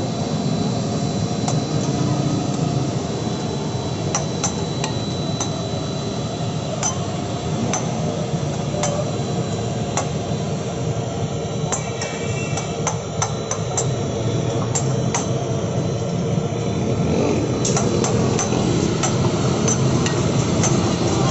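A metal spatula clacking and scraping on a flat metal griddle as buns and patties are turned and shifted: many sharp, irregular clicks over a steady background din.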